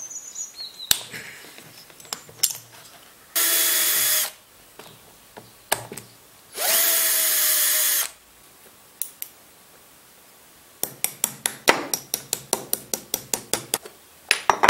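Cordless drill-driver running in two bursts of about a second each, undoing screws from a small two-stroke engine, with scattered knocks of tools being handled on the bench. Near the end comes a quick run of sharp clicks, about five or six a second.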